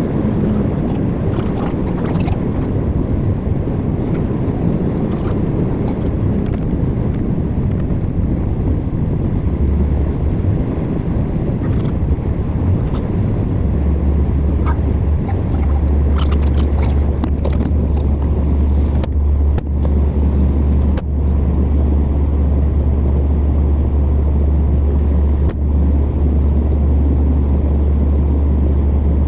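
Steady road and engine rumble of a vehicle driving on the highway. A deeper, steady drone comes in about halfway through and holds.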